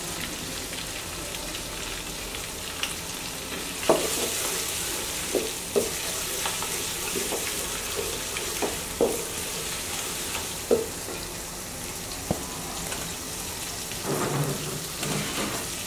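Chopped onions frying in beef fat and ghee in a pot: a steady sizzle, with a spoon knocking against the pot every so often as they are stirred.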